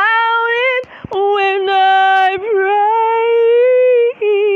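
A woman singing an original worship song unaccompanied, holding long sustained notes with a slight waver. She breaks off briefly for a breath about a second in and again near the end.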